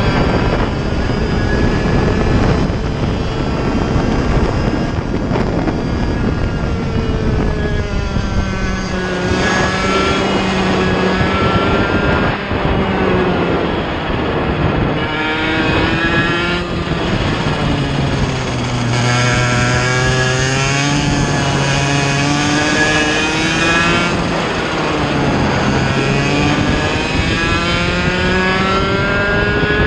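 Mini Rok kart's 60cc two-stroke engine heard onboard at racing speed, its pitch climbing on the straights and dropping for the corners several times over, lowest for a slow corner about two-thirds of the way through.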